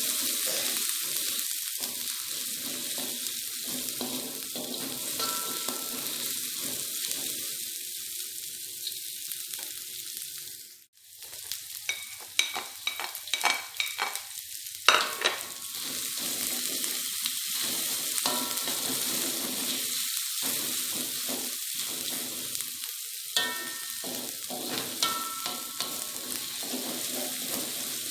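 Food sizzling in hot oil in a pan, with a utensil clinking and scraping against the pan now and then. The sound drops out briefly about eleven seconds in.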